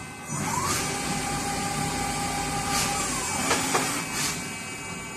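Hyundai-WIA KIT450 CNC machining center running: a motor whine rises, holds steady for a couple of seconds, then winds down, over a steady machine hum. A few sharp clicks come around the time it winds down.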